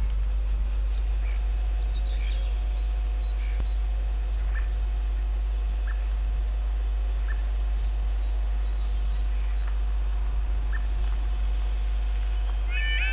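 Steady low rumble with a faint hum and scattered short bird chirps. In the last moment a level crossing's warning alarm starts, a repeating falling yodel tone, signalling that the barriers are about to come down.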